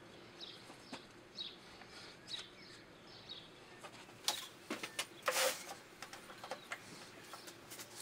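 A small bird calling, faint: a short falling chirp repeated about once a second. About halfway through come a few light knocks and a brief scrape of wooden pieces being handled on the bench.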